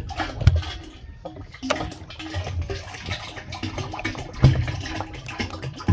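Hydraulic oil glugging as it is poured from a jug into a mini excavator's hydraulic tank, in uneven gulps, with a knock about half a second in and another near the end.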